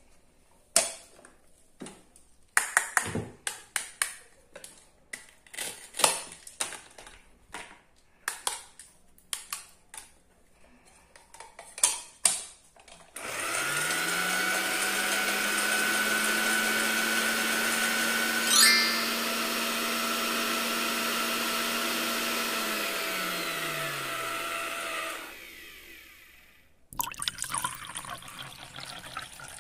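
Plastic toy parts clicking and knocking as they are handled, then a battery-powered toy blender's small motor whirring for about twelve seconds, its hum rising as it spins up and sinking as it winds down before it stops. Near the end, liquid is poured from the blender jar into a small plastic cup.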